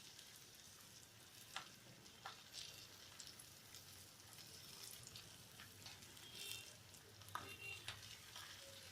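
Faint sizzling of batter-coated stuffed green chillies frying in hot oil in a kadhai, with scattered sharp crackles.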